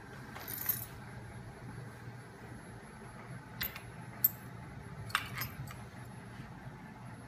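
A handful of short, sharp metallic clinks: one a little under a second in, then a cluster from about three and a half to six seconds in, the loudest just past four seconds. Under them runs a faint steady low hum from the home-built flywheel rig, which is driven by a small electric motor.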